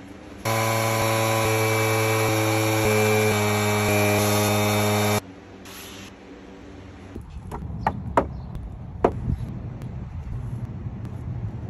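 A handheld power tool running steadily with an even hum as it works on small carved wooden bears, cutting off abruptly about five seconds in. A few light knocks follow.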